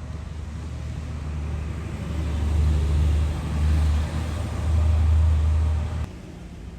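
An engine running at low speed, a deep steady rumble that grows louder about two seconds in and cuts off suddenly about six seconds in.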